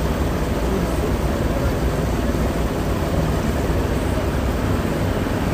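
A boat's engine running steadily while under way, a continuous low drone with a rushing haze over it.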